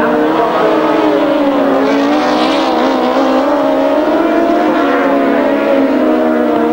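Engines of several racing grasstrack sidecar outfits running hard together, their notes rising and falling as the riders work the throttles through the bends.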